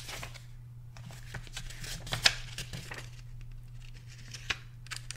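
Pages of a small paper guidebook being leafed through and rustled, with scattered short page-turn clicks, the sharpest about two seconds in. A steady low hum runs underneath.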